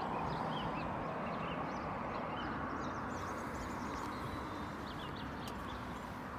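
Small birds chirping repeatedly over a steady background rush.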